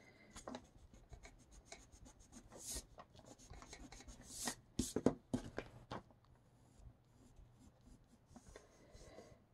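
Pencil sketching on watercolour paper: a run of short, light scratchy strokes, with a few sharper ticks around the middle.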